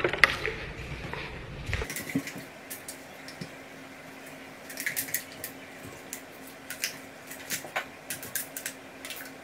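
Scattered light clicks and taps from someone moving about a room and handling plastic bottles, sped up by fast-forwarding. The clicks come irregularly, several a second, over a faint steady hum.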